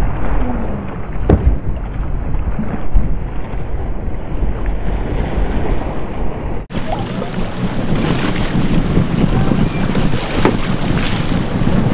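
Wind buffeting the microphone on a whale-watching boat at sea, over a steady rush of engine and water noise, with a brief knock about a second in. About two-thirds through the sound cuts abruptly to a brighter, clearer recording of the same wind and boat noise.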